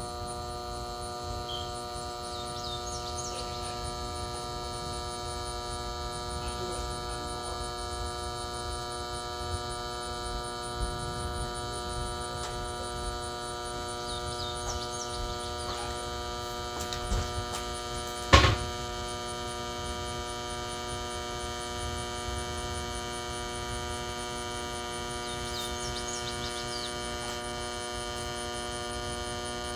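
Proctor Silex blender motor running with a steady, unchanging electrical hum. A single sharp knock comes about eighteen seconds in.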